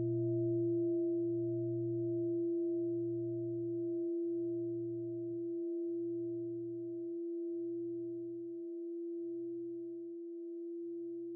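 A large bowl bell ringing out after a strike: a steady hum with a higher overtone, its low tone pulsing slowly, the pulses spreading out as the ring gradually fades.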